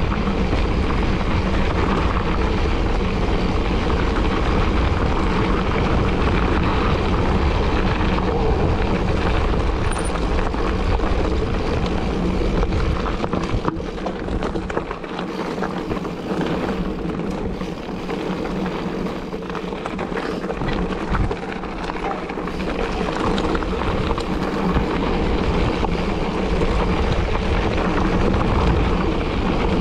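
Wind rushing over the microphone of a moving mountain bike, with a steady humming drone underneath, likely tyre hum. The rumble of the wind eases for several seconds in the middle, then builds again.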